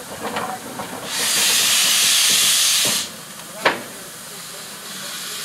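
Saddle tank steam locomotive venting steam in a loud hiss for about two seconds, which cuts off sharply. About a second later comes a single short, sharp knock.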